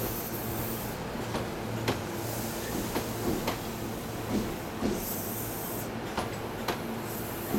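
Meitetsu 2000 series μSKY electric train rolling slowly into the station, its wheels clacking over rail joints and points at irregular intervals, over a steady low hum and some hiss.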